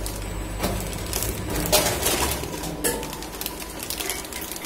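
Double-head weigher pouch packing machine running through a cycle: mechanical clicks and clatter over a steady low hum, with a louder rattling rush about two seconds in as a weigh head dumps its charge for the next pouch.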